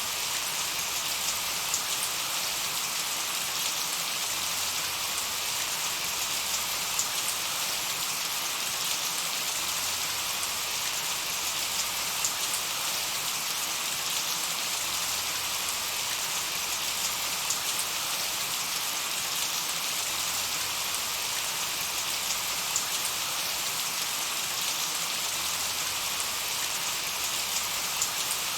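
Steady quiet rain: a continuous even hiss of falling rain with scattered individual drop ticks.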